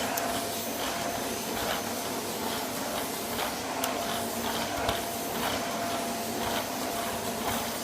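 Vacuum cleaner running steadily: an even rushing hiss with a thin steady whine and faint scattered ticks.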